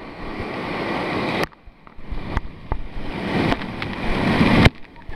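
Rushing, splashing water close to the microphone around an inner tube on a water-park ride under falling water. The sound swells, drops away suddenly twice and carries a few sharp knocks.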